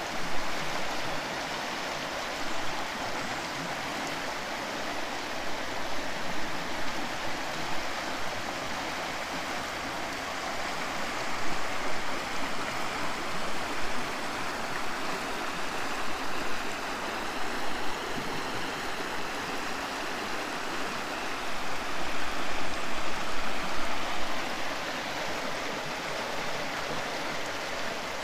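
Water of a stream rushing and splashing steadily, swelling louder for a few seconds near the end.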